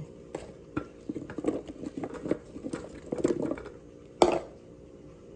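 Wet raw potato slices being tipped from a plastic container onto paper towels: an irregular run of soft slaps and taps, with a sharper knock about four seconds in, over a faint steady low hum.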